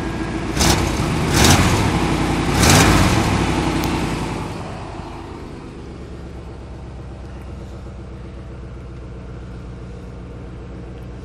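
GMC pickup truck's engine, its exhaust freshly redone, revved in three quick blips and then settling to a steady idle about five seconds in.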